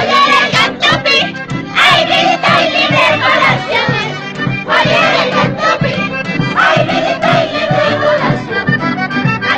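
Accordion music with a steady beat, and a group of people singing loudly in unison in short, shouted phrases, repeating about every two seconds.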